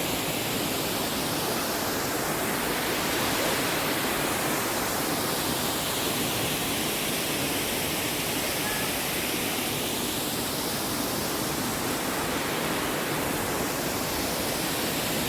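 Steady rush of a waterfall, water pouring fast down a mountainside, an even noise whose tone shifts slowly without a break.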